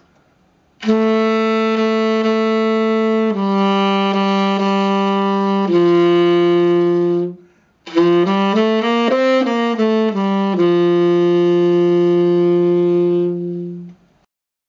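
Tenor saxophone playing three long held notes, each a step lower than the last. After a short break comes a quick run of notes up and back down, then a final long low note.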